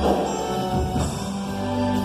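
Gospel band music: a drum kit keeping the beat over held bass notes and sustained chords.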